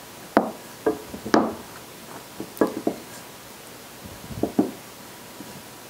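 Wooden rolling pin being rolled back and forth over flour-tortilla dough on a silicone baking mat, giving a series of short, irregular knocks and thuds.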